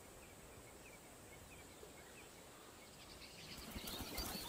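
Faint bush ambience: soft, scattered bird chirps over a low hiss of insects, with the calls growing a little busier near the end.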